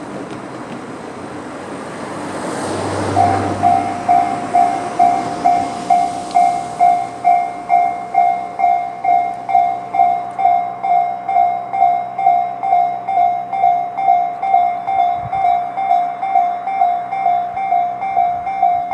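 Japanese railway level-crossing electronic warning bell of the Tobu 'sound C' type. It starts about three seconds in and dings steadily about twice a second, warning of an approaching train. Before it there is a brief rush of noise that swells and fades.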